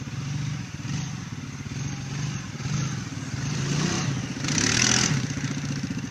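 ATV engine running, its pitch rising and falling as the throttle is worked. About four and a half seconds in comes a brief, loud hissing rush.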